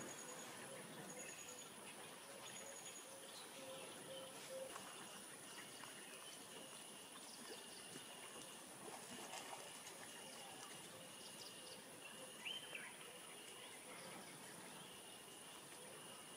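Faint rainforest ambience: a steady high-pitched insect whine, with a short note repeated about once a second from about five seconds in and a few faint bird calls.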